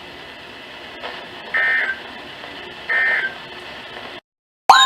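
NOAA Weather Radio end-of-message signal: two short buzzy digital SAME data bursts about a second and a half apart over faint radio hiss, marking the end of the severe thunderstorm warning. Near the end the audio drops out briefly, then a loud warbling siren tone starts abruptly.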